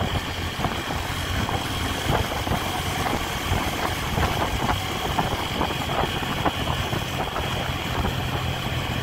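Honda Tiger's single-cylinder four-stroke engine running steadily as the motorcycle cruises, with wind and road noise.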